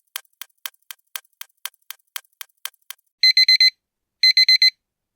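Clock ticking about four times a second, then a digital alarm clock going off about three seconds in, beeping in quick groups of four that repeat about once a second.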